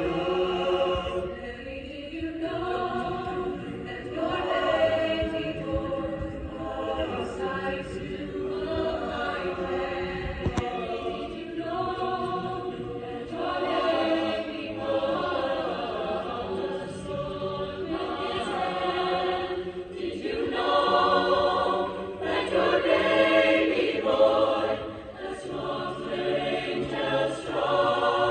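A choir singing sustained phrases that swell and fall back, loudest a little past the middle.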